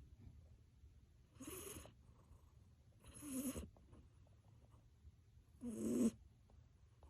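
Cat snoring in deep sleep: three snores about two and a half seconds apart, each about half a second long, the last the loudest.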